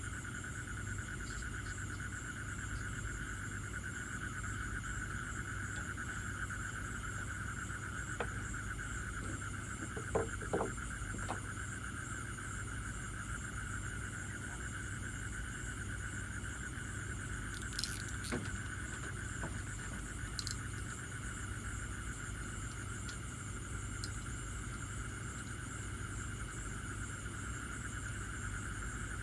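Steady background drone of even high tones over a low hum, with a few faint clicks and taps about ten and eighteen seconds in.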